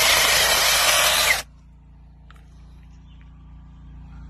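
Brushless battery-powered mini chainsaw with a 6-inch bar running loudly as it cuts through small branches, then cutting off abruptly about a second and a half in; after that only a faint low hum.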